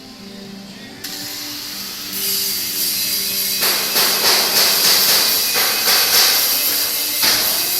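CO2 (MIG) welding arc hissing and crackling, starting about a second in and growing louder, with a run of short crackling bursts in the second half.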